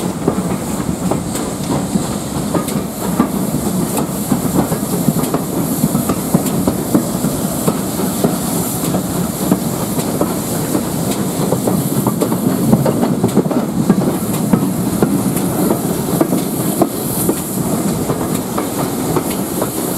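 Coaches of a steam-hauled train running along the track, heard from an open carriage window: wheels clicking over the rails in a steady, uneven stream above a continuous rumble.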